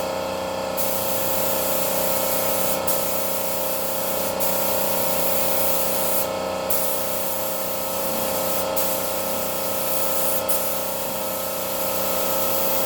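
Compressed-air paint spray gun spraying sandable primer: a steady, continuous hiss of air and atomised paint, with short sharper surges of hiss every couple of seconds.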